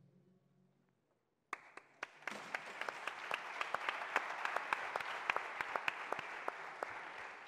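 Audience applause: a few first claps, then a full round that swells and slowly dies away. A faint tail of music fades out just before it.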